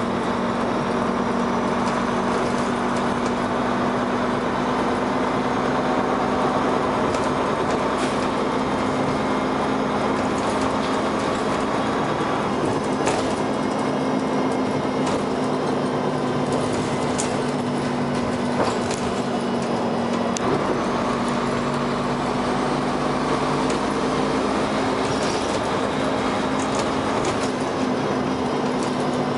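Dennis Arrow double-decker bus running, heard from on board: a steady engine and transmission drone with frequent knocks and rattles from the bodywork. The deep rumble eases off for several seconds around the middle, then comes back.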